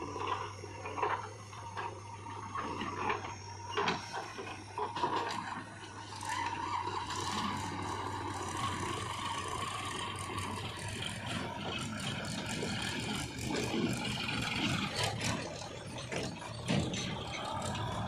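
Diesel engines of a JCB 3DX backhoe loader and a Sonalika tractor running steadily, with knocks, rattles and scraping as soil is loaded into the tractor's steel trolley, the knocks mostly in the first several seconds.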